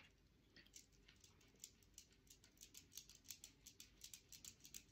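Near silence, with faint scratchy ticks of paintbrush bristles stroking over a painted surface, more frequent in the second half.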